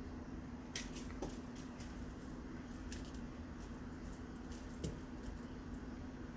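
Cats pouncing at play with a toy bird: scattered soft clicks and rustles, a cluster of sharper ticks about a second in and another near five seconds, over a steady low hum.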